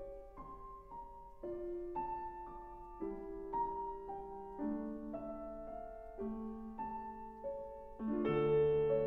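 Slow, gentle piano music of single held notes and chords, with a fuller, louder chord coming in near the end.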